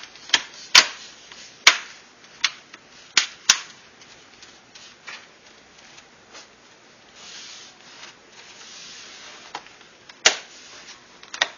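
Plastic clips of a laptop's screen shroud snapping into place: a string of sharp clicks, about six in the first few seconds, then a soft rubbing, and a few more clicks near the end.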